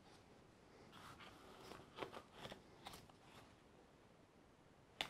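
Faint handling of plastic model parts: small clicks and rustles between about one and three and a half seconds in, and one sharper click near the end.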